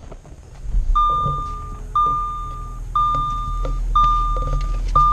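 Car dashboard warning chime: a steady single-pitched tone repeated once a second, starting about a second in, over the low steady hum of the car's engine running.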